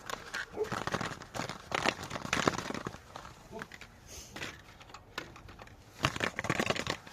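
Packaging crinkling and rustling, with small clicks and knocks, as new spark plugs are handled. The sound comes in irregular bursts, busiest about two seconds in and again near the end.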